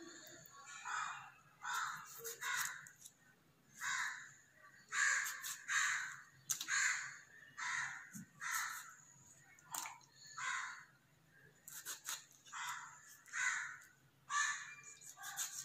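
Crows cawing over and over, short harsh calls a little more than once a second.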